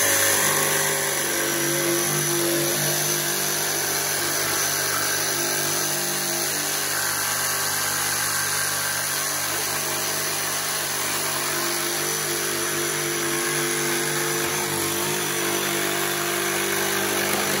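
Cordless DeWalt XR jigsaw running with its blade cutting a curve through a board. It starts up at once and runs steadily at an even pitch.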